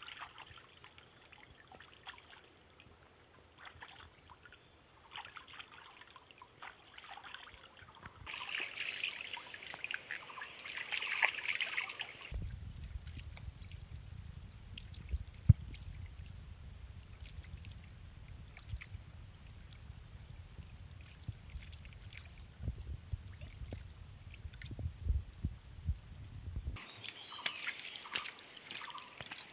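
Water trickling and splashing with scattered small clicks and knocks. A low rumble fills the middle of the stretch, then the trickling and crackle return near the end.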